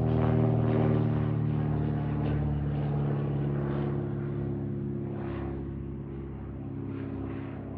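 Piston engine and propeller of a single-engine high-wing light plane flying overhead and moving away. It is a steady hum with a stack of tones, fading gradually.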